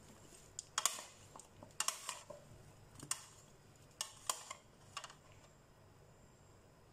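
Plastic spoon knocking and scraping against a bowl while tossing chopped fruit-and-vegetable salad: a string of light clicks that thins out after about five seconds.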